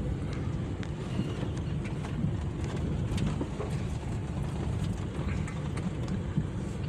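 Car driving slowly along a rough dirt track: a steady low rumble of engine and tyres with scattered light knocks and rattles.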